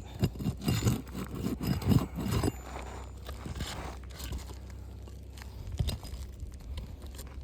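Roof shingle crackling and scraping in quick strokes as it is pried up off its nails, tearing rather than lifting cleanly; after about two and a half seconds the scraping dies down to a few faint scrapes over a low steady rumble.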